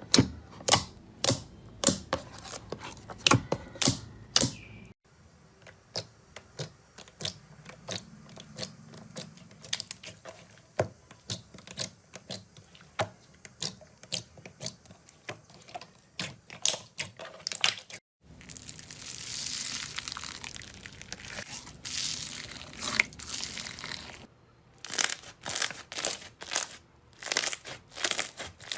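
Slime being squeezed, poked and stretched by hand, making a run of sharp wet pops and crackles. The pops come thick and fast, thin out for a long stretch, give way to a few seconds of even rustling, then crowd back in near the end, with abrupt changes where clips are joined.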